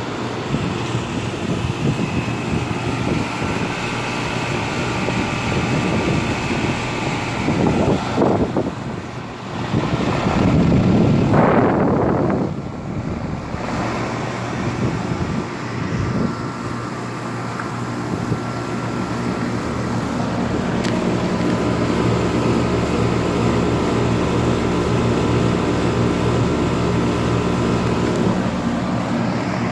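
Two-ton central air conditioner outdoor condenser units running: a steady compressor hum under the whoosh of the condenser fan. A louder rush of noise lasts a few seconds, about ten seconds in.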